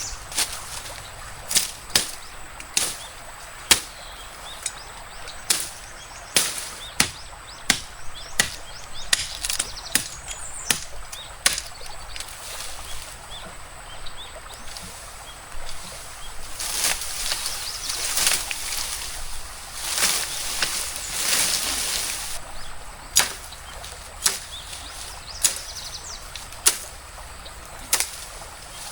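A series of sharp strikes, roughly one a second and irregular, like a blade or tool hitting wood, with a spell of rustling in the middle, over a steady stream hiss.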